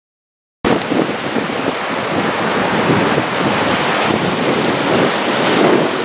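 Sea surf breaking and washing up a sandy beach, rough after a strong wind, with wind buffeting the microphone. It starts abruptly about half a second in.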